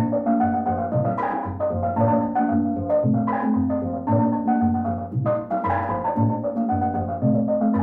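Calypso tune on steel drum, quick struck melody notes over a repeating bass line in a steady dance rhythm.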